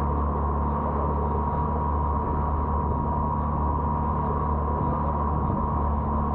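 Boat engine running steadily under way: an even low hum with a steady higher whine over it.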